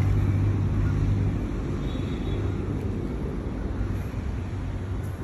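Steady low outdoor rumble, easing off slightly after the first second.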